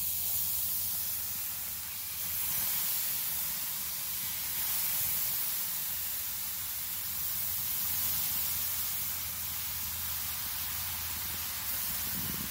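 Water boiling off a very hot cast iron griddle on a gas grill, a steady hissing sizzle as it flashes to steam, with a steady low hum underneath.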